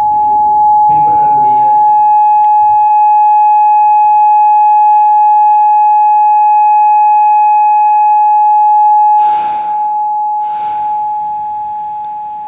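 Public-address microphone feedback: a loud, steady howl held on one pitch, with fainter higher overtones joining after about two seconds and the howl easing off from about nine seconds in. Short snatches of a man's voice come through near the start and again about nine seconds in.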